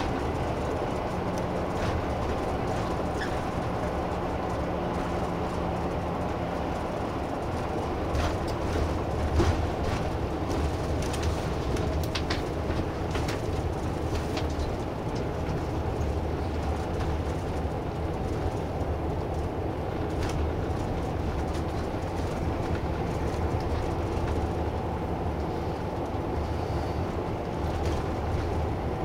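Inside a moving route bus: the engine and road noise give a steady rumble. Short rattles and clicks from the cabin come between about 8 and 14 seconds in and again near 20 seconds.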